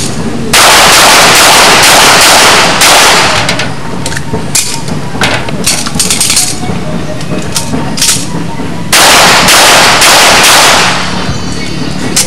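Handgun shots fired in fast strings during a timed shooting stage, so close together and loud that they run into long unbroken stretches of sound, with separate single shots between the strings.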